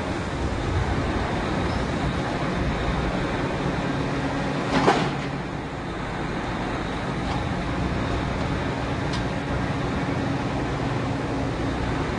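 Drilling-rig machinery running steadily with a low rumble. About five seconds in there is one short, sharp burst of noise, and later come a couple of faint ticks.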